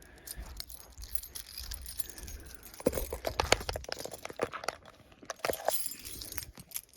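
A large bunch of keys jangling and clinking as it is handled and sorted through, with a dense run of sharp clinks about halfway through.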